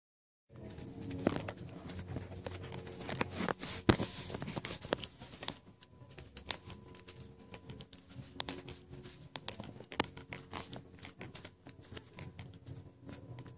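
Handling noise on a hand-held phone's microphone: irregular crackles, rustles and knocks, starting about half a second in and busiest in the first half, over a steady hum.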